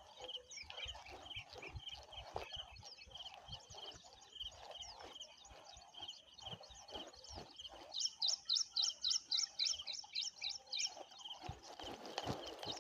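Birds chirping: a short call repeated over and over. About two-thirds of the way in comes a louder, rapid run of chirps, several a second, lasting about three seconds.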